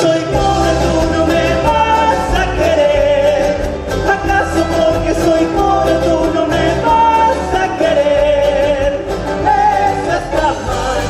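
Latin American popular band music with a singer and a steady bass beat.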